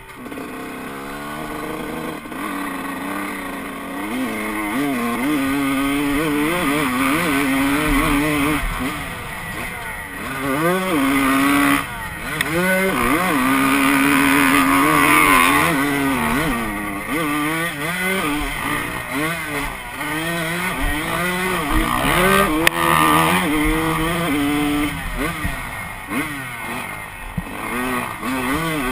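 Honda CR125 two-stroke single-cylinder motocross engine being ridden hard: its pitch climbs and drops again and again as the rider accelerates, shifts and backs off.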